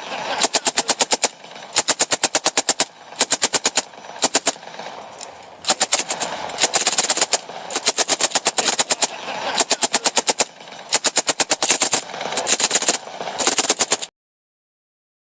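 M60 machine gun firing blank rounds in about a dozen short bursts of rapid, evenly spaced shots, around nine a second, with brief pauses between bursts. The firing cuts off suddenly near the end.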